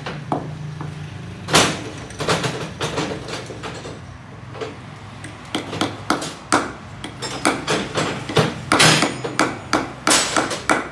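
Hand hammer striking a small metal part held on a wooden block. An uneven run of sharp knocks, about two or three a second, begins about a second and a half in.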